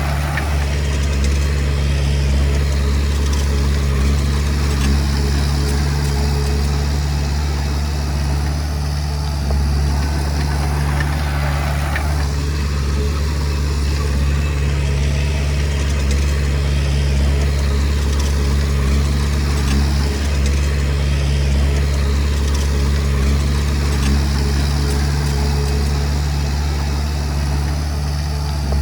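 Diesel engine of a Komatsu D20P bulldozer running steadily, with a noisier stretch of a couple of seconds about ten seconds in.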